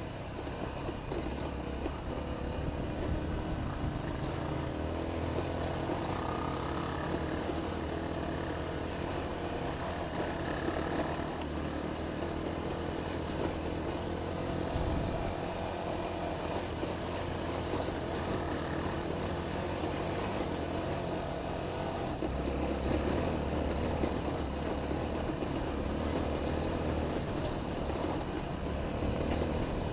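Honda XR250 dirt bike's single-cylinder four-stroke engine running under way on a trail, its pitch rising and falling with the throttle.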